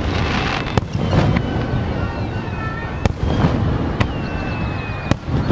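Aerial fireworks shells bursting in quick succession, sharp bangs about once a second over a continuous low rumble of rolling booms. Thin high whistling tones run between the bangs.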